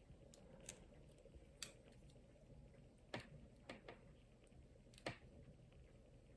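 Faint, irregular small clicks and taps of repair tools against the internals of an iPhone as the charging-port assembly is pried loose: about seven clicks, the strongest about three and five seconds in.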